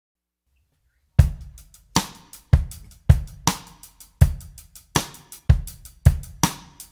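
Background music: a drum kit playing a steady beat of kick, snare and hi-hat, starting about a second in.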